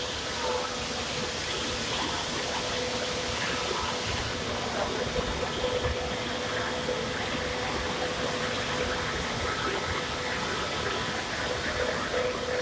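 Steady industrial roar of thermal power plant machinery around the boiler burners: a constant noise with a steady hum running through it.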